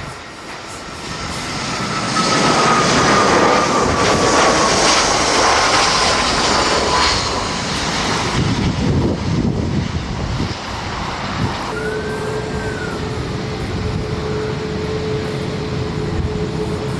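Cebu Pacific Airbus A320 jet airliner passing close by on its landing approach: its engine noise swells and its whine falls in pitch as it goes past. About 12 s in, a steady engine hum from another jet takes over.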